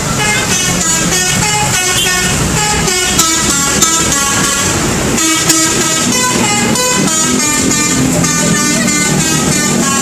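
Bus 'telolet' musical horn playing a quick run of short notes that step up and down in pitch, note after note, with a few sharp clicks about three, four and five and a half seconds in.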